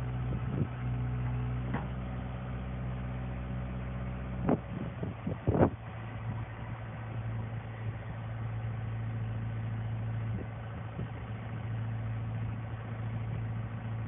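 CAT 313C excavator's diesel engine running steadily while the boom and bucket are worked, with two sharp metal clanks about four and a half and five and a half seconds in, the second the loudest.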